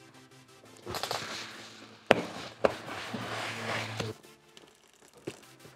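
Ridged cardboard box flaps being pulled open, scraping and rustling for about three seconds with two sharp snaps in the middle, over background music.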